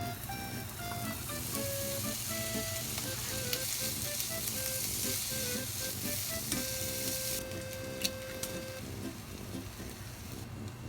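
Food sizzling as it fries in a pan, with light background music. The sizzling stops about two-thirds of the way through, leaving the music.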